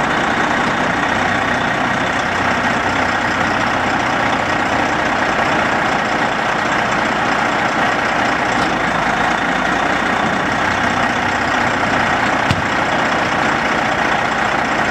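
Heavy-duty wrecker tow truck's diesel engine idling steadily, with one short knock near the end.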